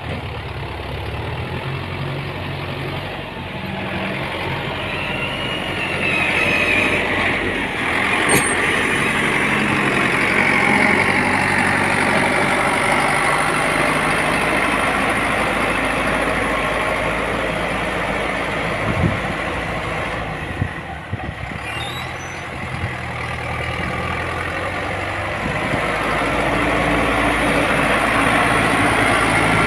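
Heavy diesel earthmoving machinery running steadily, its engine note rising in loudness about six seconds in and again near the end, with a sharp click about eight seconds in.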